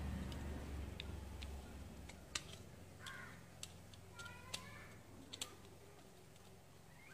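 Screwdriver working the terminal screws of a plastic wall-switch plate, making a few sharp separate clicks, the loudest about two and a half seconds in. A low rumble fades out over the first couple of seconds, and a bird calls twice in the background.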